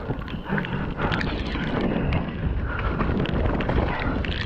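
Mountain bike riding over a rough, wet trail: wind buffeting the microphone, with a constant rush of tyre noise and many small clicks and rattles from the bike.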